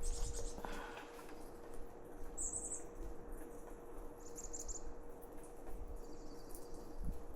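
A small bird calling in short, very high, rapid chirp series, three or four times a couple of seconds apart, over a faint steady hum.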